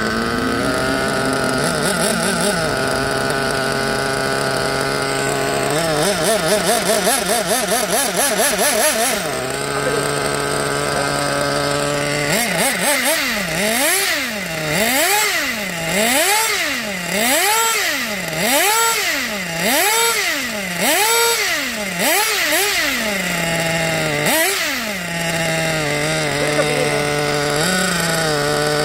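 Small nitro (glow) engine of a 1/8-scale RC buggy running at a steady idle, then revved up and down about eight times in a row by throttle blips, each rev rising and falling in pitch, before dropping back to idle near the end.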